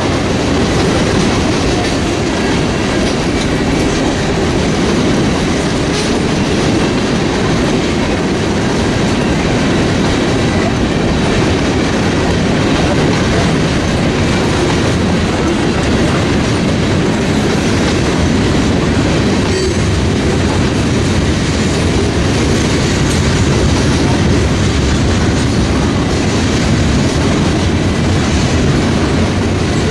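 Freight cars of a manifest train rolling past at steady speed: boxcars, covered hoppers and pipe-loaded gondolas, their steel wheels making a continuous rolling noise on the rails.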